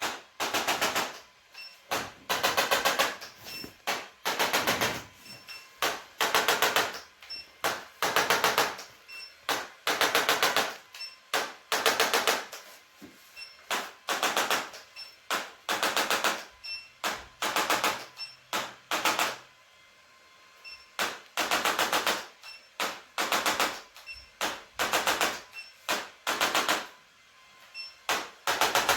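Rapid mechanical tapping in short bursts of about a second, repeated over and over with brief pauses and one longer lull about two-thirds of the way through, like a handheld percussion device rattling against the body.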